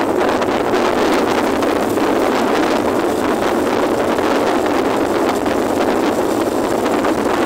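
Steady wind noise on the microphone of a camera riding on a moving motorcycle, an even rush with no distinct events.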